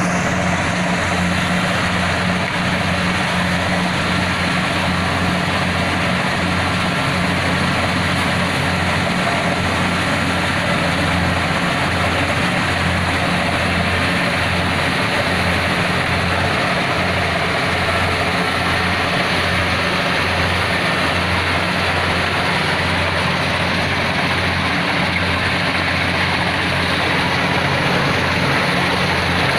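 Kubota DC70PH+ combine harvester's engine running steadily: a loud, even low hum over a dense mechanical noise, with no change in speed.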